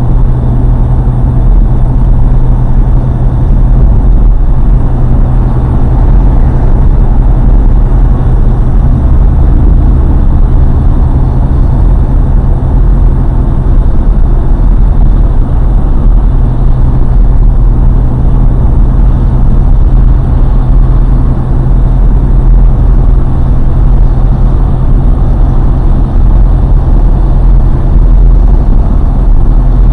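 Car driving along a highway: a steady, loud, low rumble of road and engine noise.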